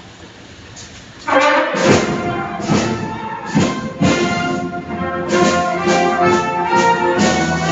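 A military brass band starts playing about a second in: brass chords over regular drum beats.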